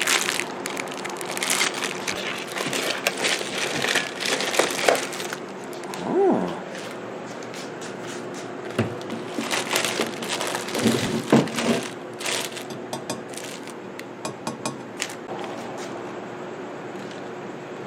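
Drill press packaging being unpacked: cardboard and packing material crackle and rustle, with scattered knocks and a couple of short squeaks, over a faint steady hum.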